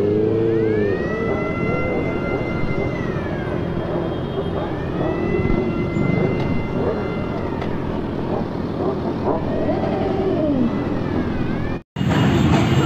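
Motorcycle engines running as a group of bikes moves slowly. Over them, a high siren-like wail rises, holds and falls three times. Just before the end the sound cuts out briefly and comes back louder.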